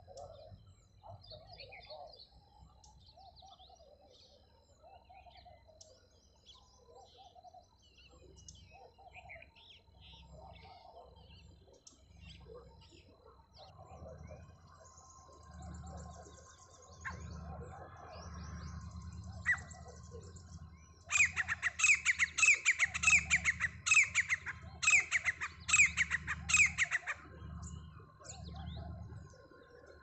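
Grey francolin calling: after faint scattered chirps from other birds, a loud run of rapid, repeated shrill notes starts about two-thirds of the way through and lasts some six seconds. A low rumbling noise runs underneath.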